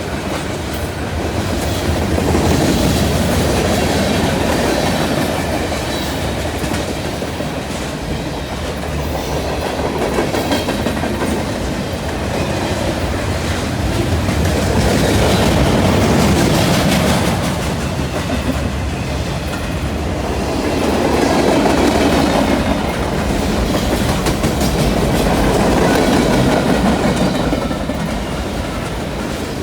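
CN freight train rolling past, its car wheels clicking over the rail joints with a steady rumble that swells and fades in waves.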